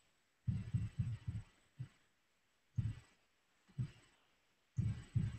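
Soft, dull taps in irregular clusters, several close together near the start and again near the end with single taps between: typing and clicking at a computer.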